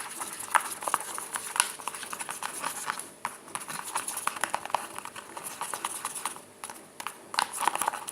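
A spoon stirring glue in a bowl, clicking and scraping against the bowl in quick, irregular taps.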